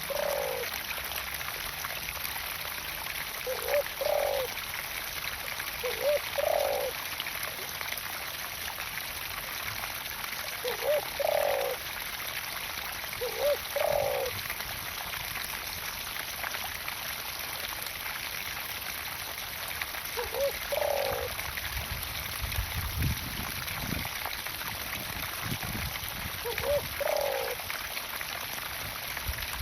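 Pumped water pouring and splashing into a garden pond with a steady rush. A short two-part call comes seven times, a few seconds apart, and a few low rumbles sound near the end.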